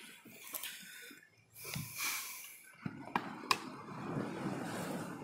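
Close handling of a plastic bottle with water in it, its cap being worked: a few sharp clicks, with short stretches of rustling and hiss.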